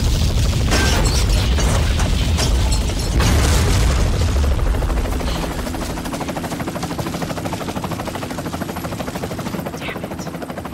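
Film sound effects: a heavy explosion rumble with crashing debris impacts over the first four seconds or so, dying down to a helicopter's rotor pulsing steadily.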